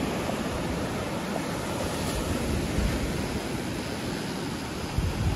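Small waves breaking and washing up a sandy beach, a steady hiss of surf. Near the end come a few low thumps, like wind buffeting or handling on the microphone.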